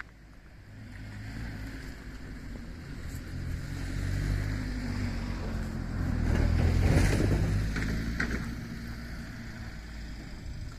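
A diesel railcar passing over a level crossing: its engine note and the rumble of the train build to a peak about seven seconds in, with a few sharp clacks from the wheels at the peak, then fade away.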